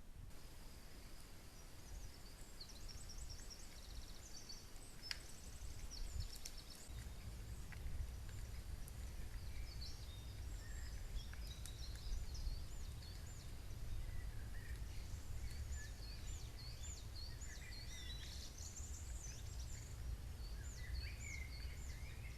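Small birds chirping and singing, with quick runs of short high notes repeating, over a low steady rumble.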